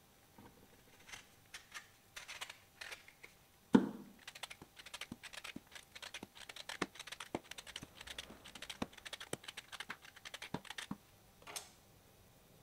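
Lemon being peeled with a hand peeler, a quick run of short scraping strokes as strips of skin come off, with one louder thump about four seconds in.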